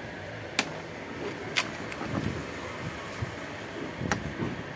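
Three sharp clicks, with handling knocks and scrapes in between, from a hand tool and nuts on the mounting bracket of an air cooler's fan motor as the motor is unbolted, over a steady background hum.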